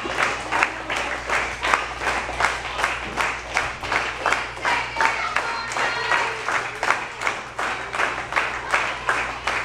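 Spectators clapping together in a steady rhythm, about three claps a second.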